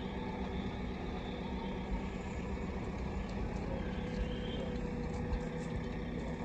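Steady low engine-like drone with a constant hum, running evenly throughout, with a few faint light ticks near the end.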